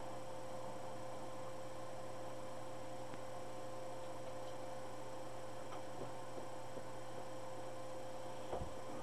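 Steady electrical hum, with a few faint clicks in the second half.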